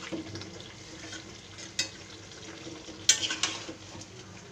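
A spatula stirring and scraping chicken pieces in a metal kadai, over a steady low sizzle of the meat frying in oil. There is a sharp scrape about two seconds in and two more close together a little after three seconds.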